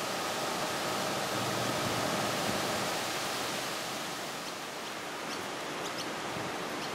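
Steady rushing hiss of outdoor ambience, with a few faint, short high chirps in the second half.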